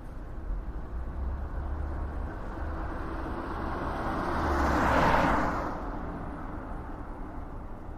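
A vehicle passing by outdoors: its road noise swells to a peak about five seconds in, then fades over a steady low outdoor rumble.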